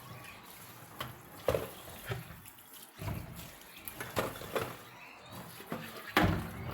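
Water splashing at a sink, with scattered knocks and clatters of things being handled, the loudest about one and a half seconds in and again near the end.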